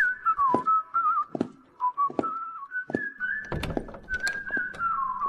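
A person whistling a meandering tune, ending on a long held note near the end, with scattered knocks and thumps.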